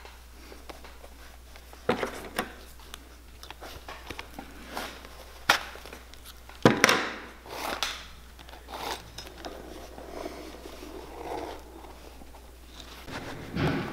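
Hand-stitching a leather boot collar: the needle is pushed and pulled through the leather and lining, and the thread is drawn through with short rasping swishes. Scattered sharp clicks come from the needle and pliers, the loudest near the middle.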